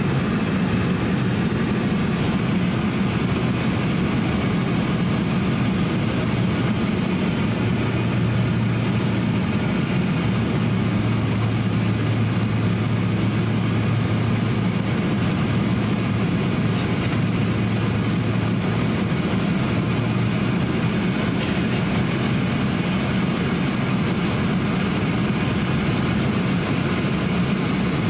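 Cabin noise of a Boeing 767-300 on its descent to land: the steady drone of its turbofan engines and the rush of air past the fuselage, heard from a window seat near the engine. A low hum under it grows stronger for several seconds in the middle.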